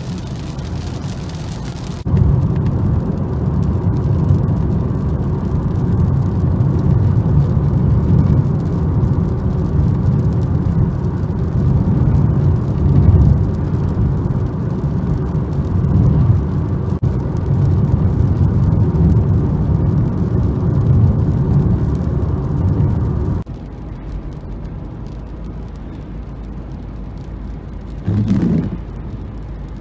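Car cabin road noise while driving on wet roads: a steady, strong low rumble of tyres and engine for most of the clip, dropping suddenly to a quieter steady drone near the end. An oncoming car passes shortly before the end, a brief swell that rises and falls.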